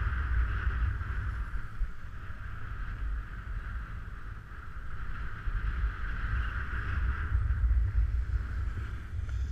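Wind buffeting a body-mounted camera's microphone during a snowboard descent, a low fluctuating rumble, with the hiss of the snowboard sliding and scraping over packed snow that swells and fades as the board turns.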